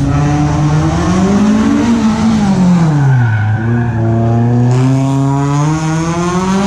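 A competition car's engine on a cone slalom course, revving up, easing off to a low point about three and a half seconds in, then revving up again as the car accelerates through the cones.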